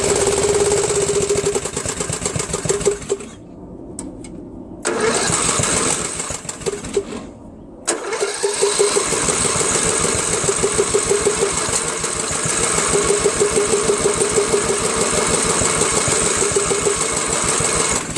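Briggs & Stratton 13.5 hp lawn tractor engine running unevenly: it cuts out twice for a second or so and catches again, then stops near the end. It cannot keep running because compression is low, 75 psi, which the owner puts down to worn valves.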